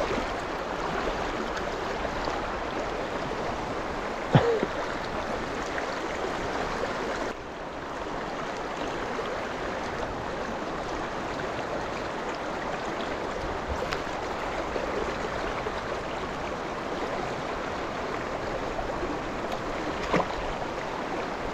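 River water running steadily, with a brief knock about four seconds in and a couple of fainter clicks later.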